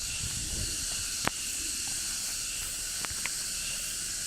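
Steady high-pitched hiss with a few short, sharp clicks.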